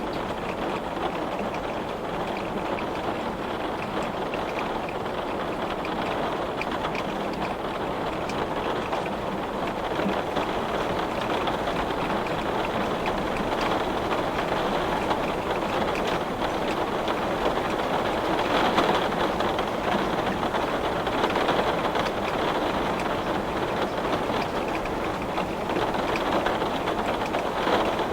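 Heavy rain beating on window glass, a steady dense patter of drops that swells slightly about two-thirds of the way through.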